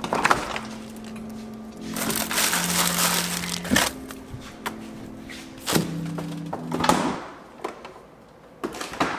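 Refrigerator door pulled open with a click, then a spell of crinkling plastic and a few sharp knocks as produce is taken out, over soft background music.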